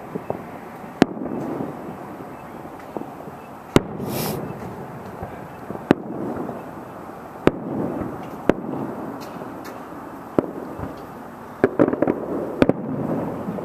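Distant fireworks bursting: sharp bangs every second or two, each followed by a low rumble, with a quick flurry of bangs near the end.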